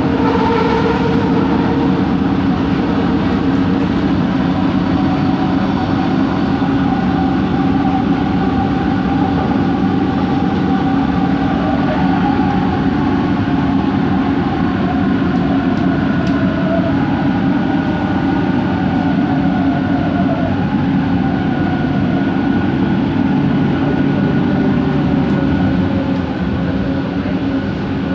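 Bombardier Innovia ART 200 train running, heard from inside the car: a steady rumble with several humming motor tones from its linear induction motors, some of them gliding in pitch around the middle.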